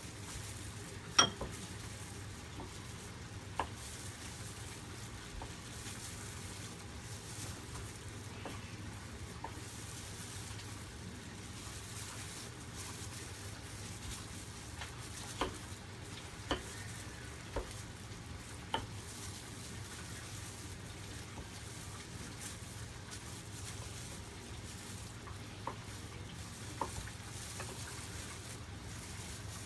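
Food frying in oil in a pan, a steady sizzle, with sharp clinks of utensils against dishes now and then, the loudest about a second in and several more in the middle.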